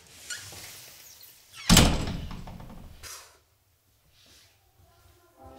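A wooden front door being shut, making one loud, sharp bang with a low thud that dies away over about a second, close to two seconds in. Steady music tones start just before the end.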